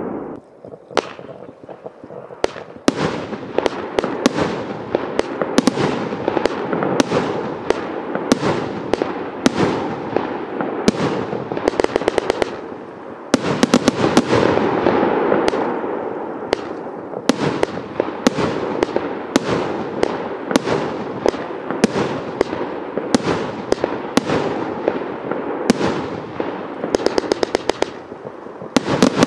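Evolution Fireworks Avatar 72-shot compound barrage cake firing: a long run of sharp shots and bursting shells with crackle between them, starting about a second in and including quick flurries of shots near the middle and near the end.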